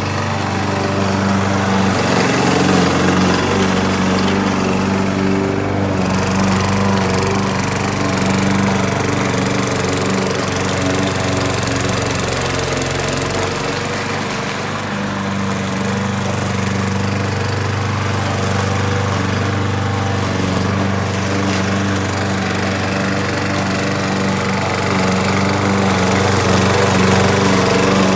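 Gasoline push lawn mower engine running steadily while cutting grass, its note dipping and picking up a little as it works through the lawn.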